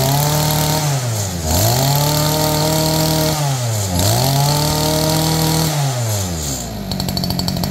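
Makita MEM2025 20cc two-stroke brush cutter engine revved three times on the throttle: each time it climbs to high speed, holds there for one to two seconds and drops back. It settles to idle near the end.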